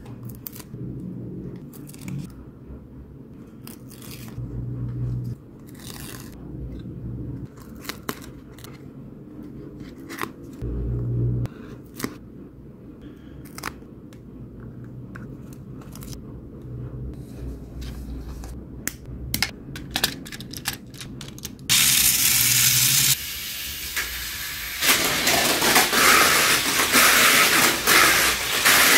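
Plastic Mini 4WD body shell being handled and decals rubbed onto it: scattered small clicks and scrapes of plastic over a low hum. About 22 seconds in, a much louder steady rushing noise starts abruptly and carries on.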